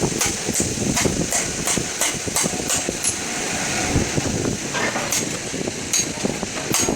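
Hammer tapping on metal: quick regular strikes, about three a second for the first few seconds, then a few spaced blows.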